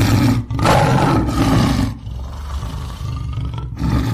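Lion roar sound effect: a loud roar for about two seconds that carries on more quietly, then swells again near the end.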